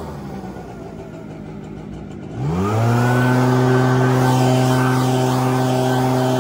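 Echo two-stroke backpack leaf blower at low idle for about two and a half seconds, then revved back up with a rising whine to full throttle and held steady, blowing leaves across grass.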